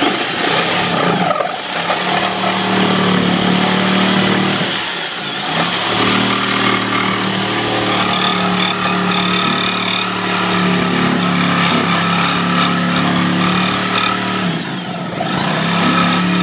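Reciprocating saw (Sawzall) running as it cuts through drywall along a marked line, a steady motor whine that slows and speeds back up three times as the trigger is eased and squeezed.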